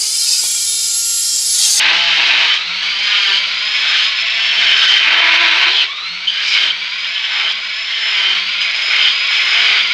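Dremel 4000 rotary tool driving a flex-shaft handpiece, its carving burr grinding into wood. The motor whine dips in pitch and recovers several times as the burr bites and is eased off.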